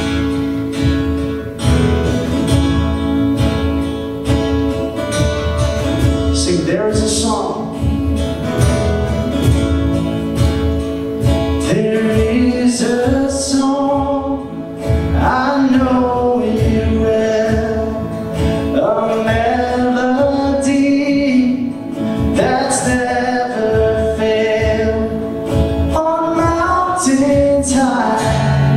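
Worship song played on strummed acoustic guitar with other instruments, in a steady rhythm. Voices singing a melody come in about six seconds in.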